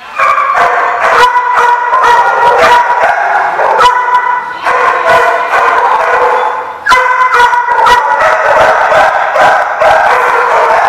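Dogs barking and yipping during rough play, with music in the background.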